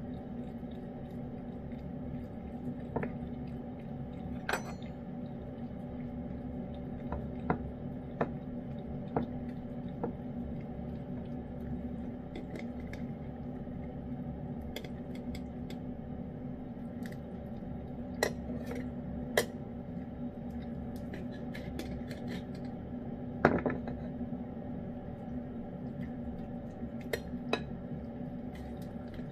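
Metal table knife clinking and scraping against a metal cat-food can as pâté is scooped out: scattered sharp clicks and short scrapes at irregular intervals, the loudest a little past two-thirds of the way through, over a steady low hum.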